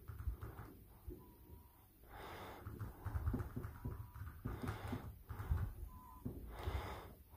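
A dog breathing and snuffling close to the microphone, with irregular scuffling and bumping noises.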